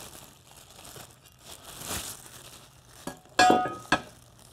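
Clear plastic packaging bags crinkling as parts are handled and unwrapped. About three and a half seconds in there is a louder short clatter with a brief ring, followed by a sharp click.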